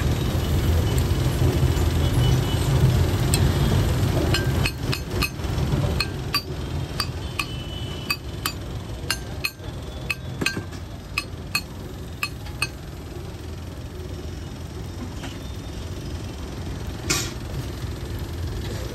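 Steel spatula striking and scraping a flat iron griddle (tawa), chopping fried idlis into pieces: a quick run of sharp metal clinks from about four to thirteen seconds in, and one louder scrape-and-clatter near the end. A steady low rumble sits underneath.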